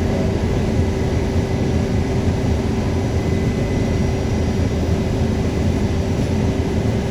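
New York City subway car running along the track: a steady, loud rumble of wheels and car body with a constant hum over it.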